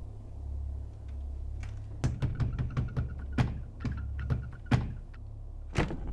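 Banging and rattling at a closed door, a quick irregular run of knocks and thuds starting about two seconds in, with some of the loudest near the end, over a low steady hum.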